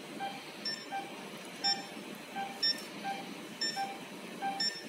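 Medical monitor beeping in a steady rhythm: a lower beep roughly every three-quarters of a second, interleaved with a higher beep about once a second.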